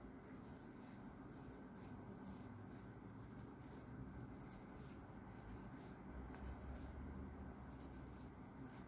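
Faint rustling and light ticks of a crochet hook pulling cotton yarn through a puff stitch, over a low steady room hum.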